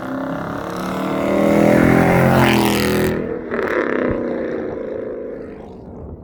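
Muffler-deleted V8 exhaust revving: the pitch climbs for about two and a half seconds to its loudest, breaks off sharply about three seconds in, then comes back and falls away as the engine drops toward idle.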